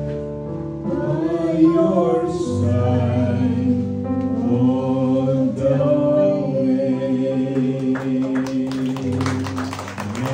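A man and a woman singing a duet through handheld microphones over a backing track of long held notes. A patter of sharp claps comes in near the end.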